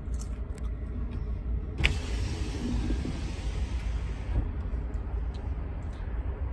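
Steady low car-cabin rumble of road and engine noise while riding in a moving car. A sharp click about two seconds in is followed by a hiss lasting about two and a half seconds.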